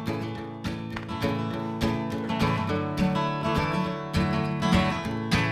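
Acoustic guitar strummed in a steady rhythm: the instrumental intro of a song, with no singing yet.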